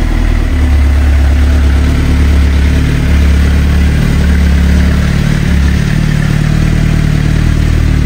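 2009 Suzuki GSX-R750's inline-four engine idling steadily just after starting. It keeps running smoothly with its Power Commander flashed back to the stock fuel map and fresh spark plugs and coils, after having barely stayed running before.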